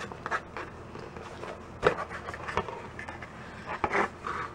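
Cardboard subscription box being opened and its contents handled by hand: scraping and rustling, with a few sharp taps, the sharpest about two seconds in.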